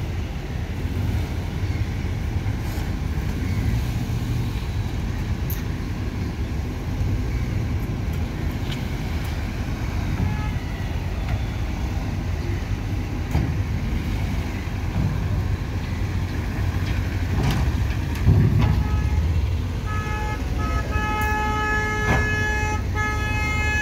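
Vehicle engines running steadily, with a few knocks, and near the end a vehicle horn honking in a string of short toots.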